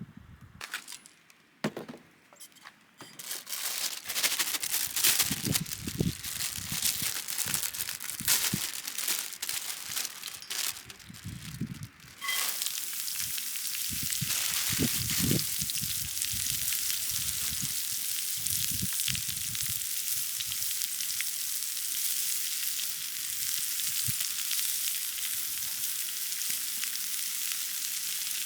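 Food frying on a hot pan: irregular crackling and spitting, then about twelve seconds in a sudden steady, loud sizzle that carries on.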